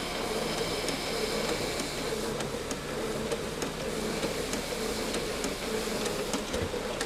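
Marvel draw-cut power hacksaw running steadily, its blade stroking back and forth through a bar of mild steel to cut it off.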